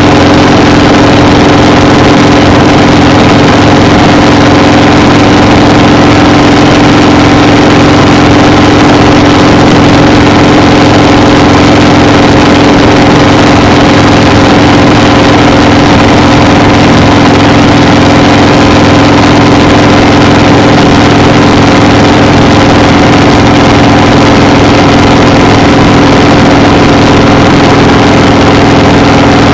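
Loud, steady engine drone with a constant hum that does not change in pitch or level.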